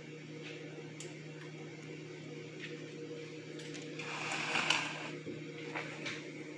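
Chopsticks clicking and stirring through a bowl of fried rice, with a louder rustling scrape about four seconds in, over a steady low appliance hum.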